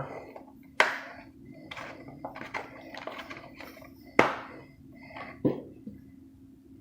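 A boxed toy car and its packaging being handled: three sharp plastic clicks or knocks, about one, four and five and a half seconds in, with lighter taps and rustling between them.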